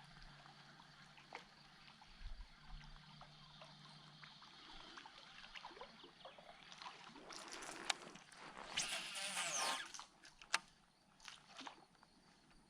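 Faint water trickling and sloshing around a kayak, with small scattered clicks. About seven seconds in comes a louder hissing whir lasting some three seconds that falls in pitch, set between two sharp clicks.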